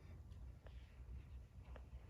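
Near silence: room tone with a steady low hum and two faint ticks.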